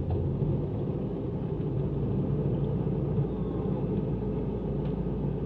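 Fishing boat's engine running steadily with a low rumble.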